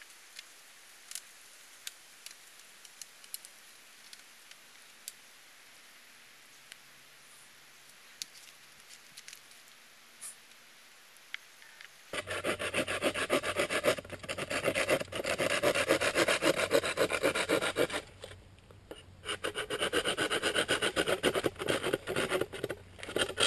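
Quiet at first, with a few small clicks from cord being worked into a lashing on a bamboo pole. About halfway through, a Bahco folding saw starts cutting through a green bamboo pole in quick strokes, in two spells with a short pause between them.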